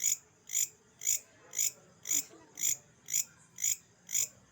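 An insect chirping in a steady rhythm, nine short, high chirps at about two a second.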